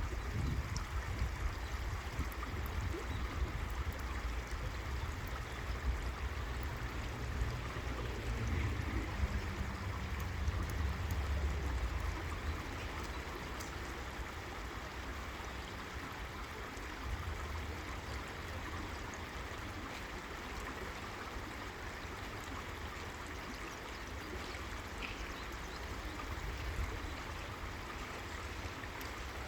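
River water flowing steadily over rocks, an even rushing and gurgling. A low rumble underneath is stronger for the first twelve seconds or so, then eases off.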